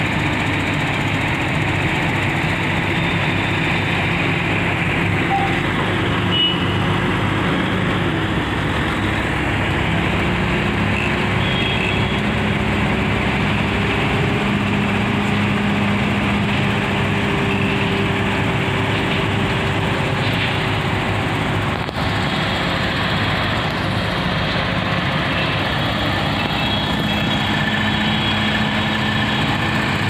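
Heavy diesel engines of a mobile crane and a multi-axle hydraulic girder trailer running steadily, their note stepping up slightly about ten seconds in.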